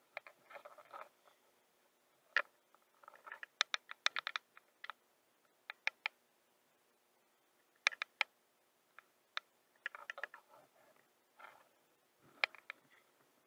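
Small baitcasting reel cranked in short spurts during a twitching lure retrieve: irregular sharp clicks and quick clusters of clicks from the reel's handle and gears, with pauses in between.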